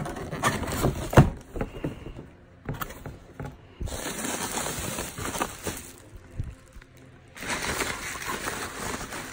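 A cardboard box being opened by hand: sharp knocks and scrapes of the flap and tab, the loudest about a second in. Then, from about seven and a half seconds, plastic bubble wrap rustling and crinkling as a wrapped part is handled.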